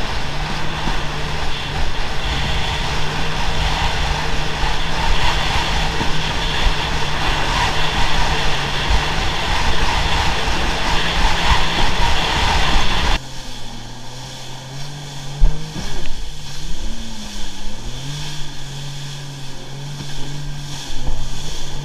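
Jet ski engine running at speed with wind and water rushing past. About 13 seconds in the sound drops to a lower engine note that dips and rises, with a few sharp knocks.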